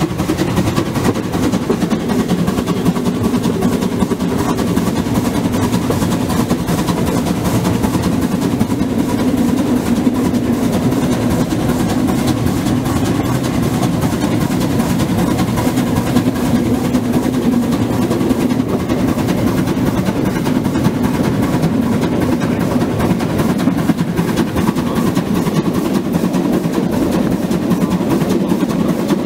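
Narrow-gauge steam locomotive 99 1781-6, a 2-10-2 tank engine, working its train at speed, heard from the train just behind it: a loud steady mix of exhaust, running gear and wind rushing past, with a dense rapid rattle.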